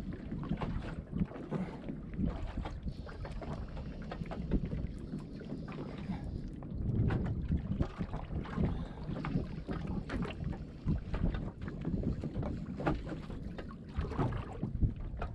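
Wind buffeting the microphone over a small boat rocking at anchor in a swell, with water slapping the hull in irregular knocks.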